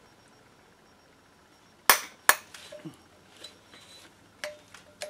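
Metal hand tools clinking against engine parts: two loud, sharp clinks about two seconds in, a fraction of a second apart, then a few lighter ticks and taps.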